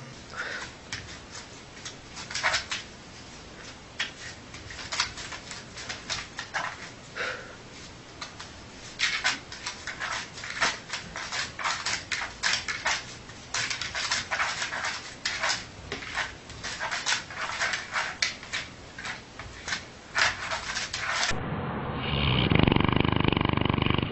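A sleeping dog making short, scratchy snuffling noises in quick irregular succession, with a few faint whimpers. About 21 seconds in, a cut brings a louder, lower, steady rushing noise.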